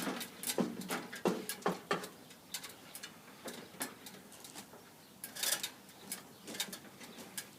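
Scaffold board and fittings being slid along and handed down: irregular knocks and clicks, with a short scraping rasp about five and a half seconds in.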